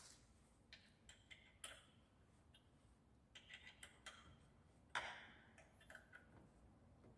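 Faint, scattered metal clicks and taps of a hex key working at the kickstarter lever of a Horse 051 scooter, with one sharper click about five seconds in.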